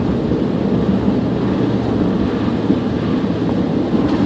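Steady road noise inside a truck's cab at highway speed, about 50 mph: a low engine drone with the rush of tyres on wet, slushy snow.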